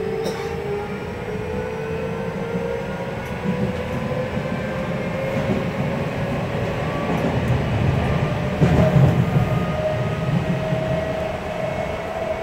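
Traction motor whine of an Odakyu 3000-series electric train heard from inside the car, with several tones rising slowly in pitch as the train accelerates over a steady rumble of wheels on rail. This unit's motor sound differs from that of other 3000-series sets. The rumble grows louder briefly about nine seconds in.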